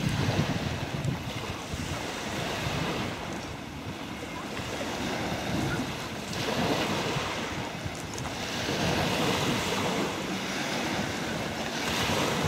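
Small sea waves washing in the shallows, the wash swelling and easing every two to three seconds, with wind buffeting the microphone.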